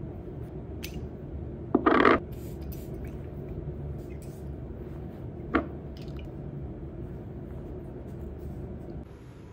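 Small objects handled on a wooden tabletop: a brief loud clatter about two seconds in and a single light knock a few seconds later, over a steady low hum.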